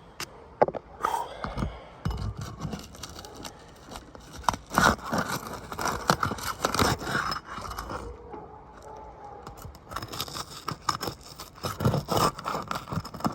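A hand tool scraping and prying under asphalt three-tab shingles, breaking them loose from their sealant strips, in irregular scrapes, crunches and sharp clicks.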